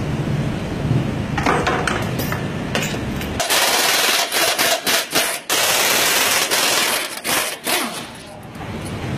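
Pneumatic impact wrench hammering on a suspension bolt in several bursts with short breaks, starting about a third of the way in and stopping near the end. Before it, workshop clatter and clicks.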